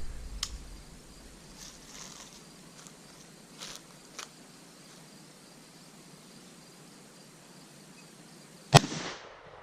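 A single shot from a Smith & Wesson M&P15 AR-15 rifle in .223, sharp and sudden near the end, with a short echo after it. Before the shot there is only a faint steady chirring of insects.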